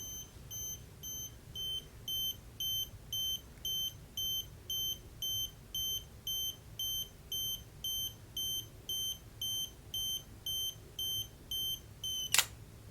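Olympus OM-10's electronic self-timer beeping a high tone about twice a second as it counts down, then the shutter fires with a sharp click near the end when the timer runs out.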